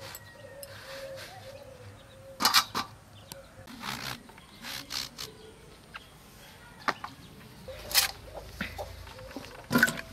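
Knife cutting through whole raw brinjals (eggplants), a sharp crisp cut every second or so at an uneven pace. Underneath is a faint, wavering animal call.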